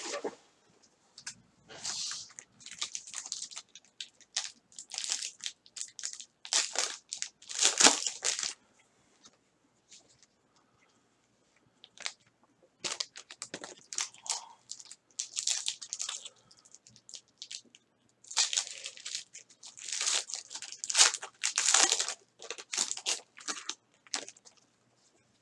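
Foil trading-card pack wrappers being torn open and crinkled by gloved hands, in irregular rustling bursts with a pause of a few seconds about a third of the way through.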